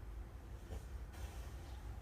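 Small dog snoring in its sleep, with one breathy snoring breath about a second in.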